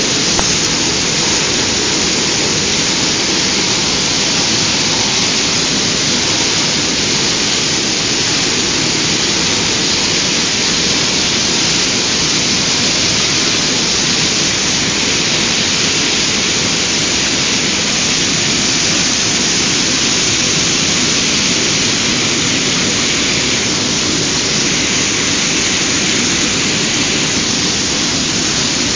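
Fountain-type floating pump aerator running, its spray of water falling back and splashing in a steady, loud rush.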